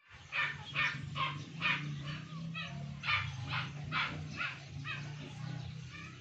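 A dog barking repeatedly in short, quick barks, about two to three a second, fading near the end, over a steady low hum.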